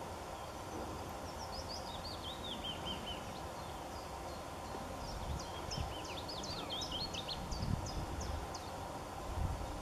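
A small songbird singing two short phrases of quick, high chirping notes, the first about a second and a half in, the second busier one from about five seconds, over a steady outdoor hiss. A few low thumps come near the end.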